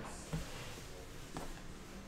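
Quiet card handling: two soft taps as a stack of trading cards is set down and squared on a card holder sitting on a metal tin, one about a third of a second in and one about a second and a half in.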